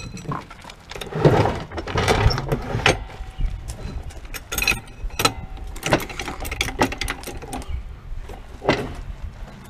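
Irregular metallic clinks and knocks of hand tools and car parts during work under a car, over a low rumble.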